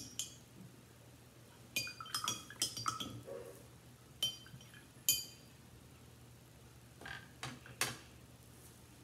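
Paintbrush clinking against a rinse-water cup: a quick cluster of short ringing clinks about two seconds in, two single clinks around four and five seconds, then a few duller taps near the end.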